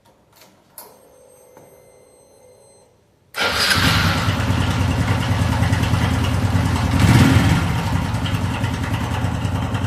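Honda Biz 110i's single-cylinder four-stroke engine: a click and a faint whir, then the engine starts about three seconds in and runs, briefly louder around seven seconds in. It is running with its abnormal engine noise, on very little oil and with a slack cam chain.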